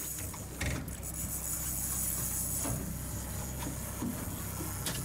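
Boat outboard motor running steadily under a steady high hiss, with a few short knocks from gear on deck.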